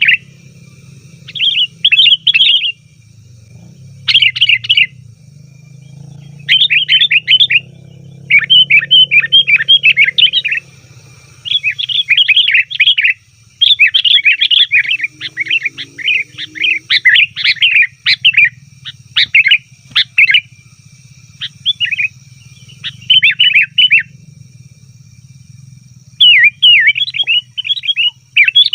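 Sooty-headed bulbul (kutilang) giving noisy, rapid chattering calls in bursts of about half a second to two seconds, phrase after phrase with short gaps. It is the busy, excited calling used as a lure to call in wild bulbuls.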